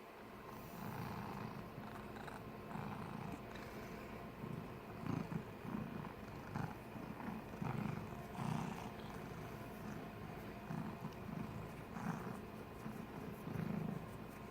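Domestic cat snoring in her sleep: low snores in uneven pulses, roughly one a second.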